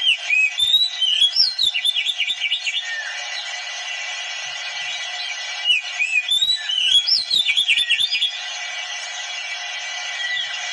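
Oriental magpie-robin (kacer) singing: two phrases of whistles and rapid chirps, one at the start and one about six seconds in, over a steady hiss.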